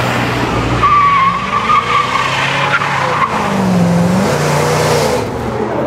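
Chevrolet pickup truck doing a burnout: its rear tyres squeal while the engine revs, the pitch dipping and climbing again about four seconds in. The squeal dies away near the end.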